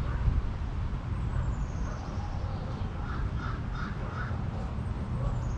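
Birds calling: a quick run of about four short calls a little past the middle, and thin high whistles that glide downward, one near the start and one at the end, over a steady low rumble.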